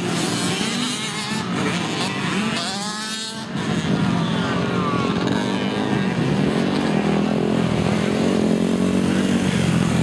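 Small dirt bike engines running on a motocross track, their pitch rising and falling as the riders work the throttle. The engine sound gets louder about three and a half seconds in.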